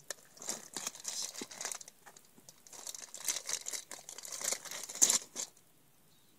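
Handling noise of crinkling and rustling, like plastic packaging being handled, in two spells of irregular crackles and clicks with a short lull between. It stops about five and a half seconds in.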